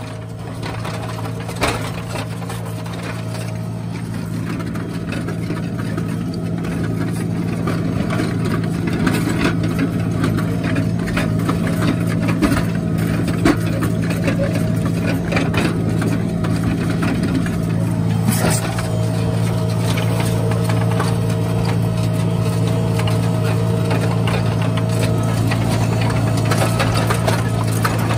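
John Deere 6115M tractor engine running steadily under load while ploughing, with a faint steady whine above the engine note. Scattered clicks and knocks, with a sharper knock about 18 seconds in.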